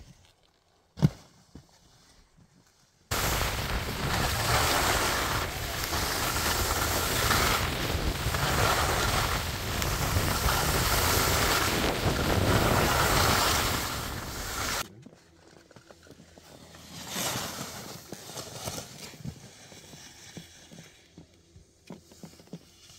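Loud rushing wind noise on the microphone with skis sliding over snow, starting abruptly about three seconds in and cutting off about fifteen seconds in. Before it, quieter outdoor sound with one sharp click about a second in.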